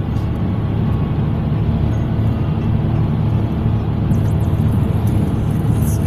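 Steady low rumble of a moving car's engine and tyres on wet asphalt, heard from inside the cabin.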